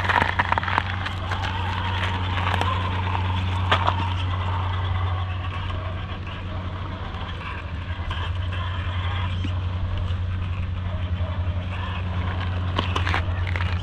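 Radio-controlled rock crawler's electric motor and gears running steadily as it climbs over rock, with scattered clicks from the tyres and chassis on the stones.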